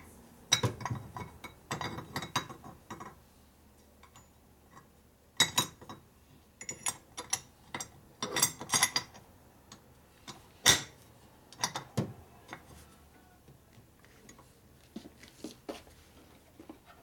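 Scattered metal clinks and knocks of a Harley shovelhead rocker arm and shaft being handled and worked into the rocker box, with one louder knock a little past the middle.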